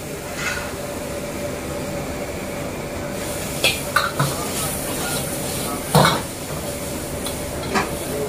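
A metal ladle clanking and scraping against a steel wok during stir-frying, a handful of sharp knocks with the loudest about six seconds in. Underneath runs the steady noise of the gas burner and kitchen, with a faint steady hum.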